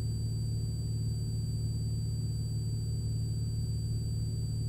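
Cessna 182RG's six-cylinder Lycoming engine and propeller making a steady low drone in flight, heard inside the cabin, with a faint steady high-pitched tone over it.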